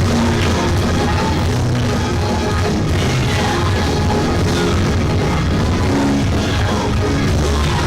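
Loud, driving praise music played by a church band, with a heavy low end.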